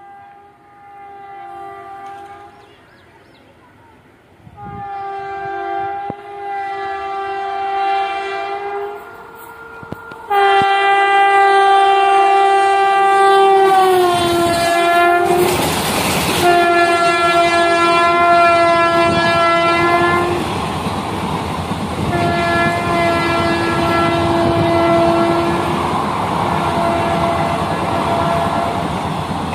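Indian Railways electric locomotive sounding its horn in several long blasts as the express approaches and passes. One long blast drops in pitch as the locomotive goes by close at hand with a loud rush. The coaches' wheels then clatter over the rail joints under further horn blasts.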